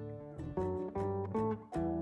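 Background music on acoustic guitar: a run of plucked notes, several a second.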